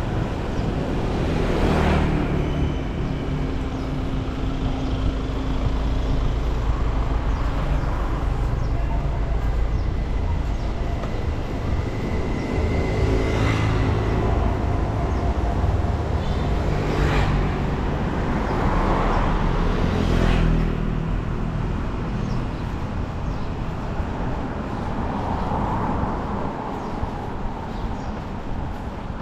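Street traffic: motor scooters and cars running along a town road, with a steady engine hum and several vehicles passing close by, one after another.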